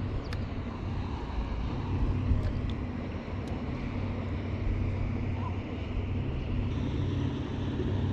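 A steady low engine drone, with wind on the microphone and a few faint clicks in the first few seconds.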